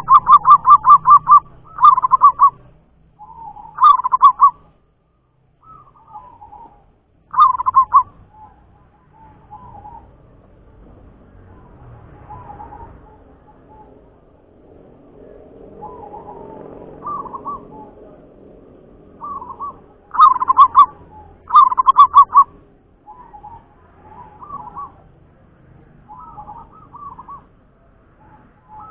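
Caged local zebra dove (perkutut) cooing in bursts of rapid staccato notes. The loudest bursts come at the start and again about twenty seconds in, with fainter cooing phrases between them.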